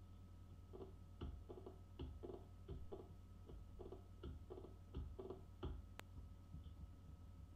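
Computer keyboard keys tapped one at a time, about two a second and slightly irregular, then a single sharp click about six seconds in, over a low steady hum.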